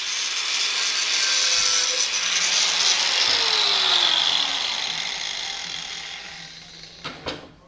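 Angle grinder with a cut-off disc slicing through a pressed-steel Suzuki Baleno oil pan, a loud harsh cutting noise that winds down after about four seconds, followed by a couple of knocks near the end.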